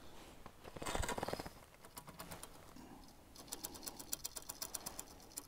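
Faint fabric rustle about a second in, then a fine rapid clicking, about ten ticks a second, from a small spinning reel on a short ice-fishing rod as its handle is turned.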